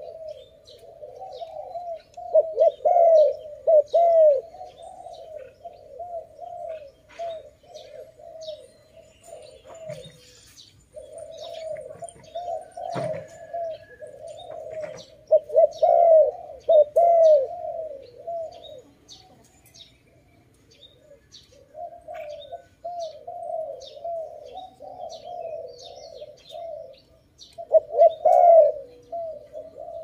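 Dove cooing in long runs of short, quick, rising-and-falling notes, loudest a couple of seconds in, around the middle and near the end, with short pauses between runs. Small birds chirp faintly throughout.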